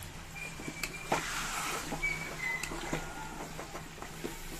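A steel spoon scraping and clinking against a pan as it stirs a thick curry of chana dal and bitter gourd, with a few short squeaks. A steady low hum runs underneath.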